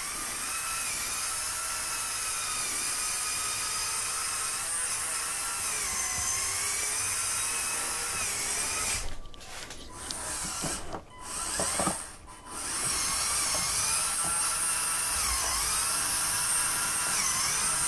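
Electric drive motors and gearing of a LEGO Technic 42129 Mercedes-Benz Zetros trial truck whining as it drives over an obstacle. The pitch wavers up and down as the load changes, and the motors stop briefly a few times around the middle.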